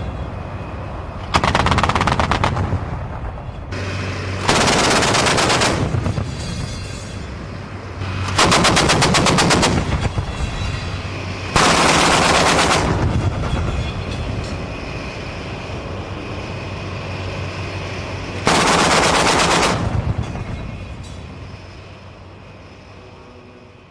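Twin 35mm Oerlikon autocannons of a Type 87 self-propelled anti-aircraft gun firing five bursts of about a second each, spaced a few seconds apart. A steady low engine hum runs between the bursts. The sound fades out near the end.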